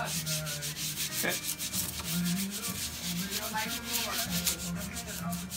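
A hand rubbing pallet tape, a wide sheet of adhesive paper, flat onto a screen-printing platen. It makes a quick, continuous run of dry rubbing strokes.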